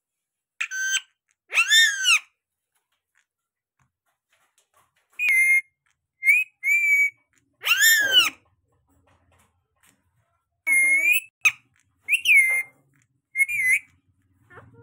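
Rose-ringed parakeet giving short, shrill whistled calls, about nine in all, each rising and falling in pitch, some in quick pairs and others spaced a few seconds apart.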